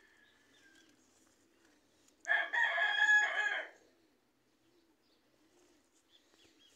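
A rooster crows once, about two seconds in; the crow lasts about a second and a half.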